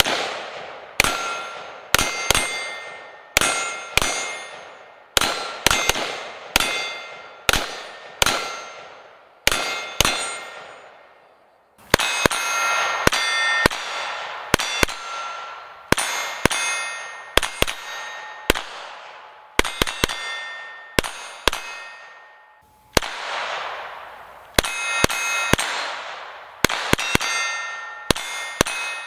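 A steady string of gunshots striking steel targets, each hit followed by the plate ringing and fading out. About one shot a second, with quicker doubles now and then.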